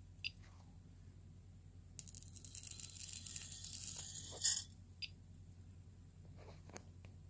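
Flyback high-voltage supply crackling and hissing for about two and a half seconds while it drives a Crookes paddle-wheel tube, growing louder and ending in a sharp snap. A few single sharp clicks come before and after it.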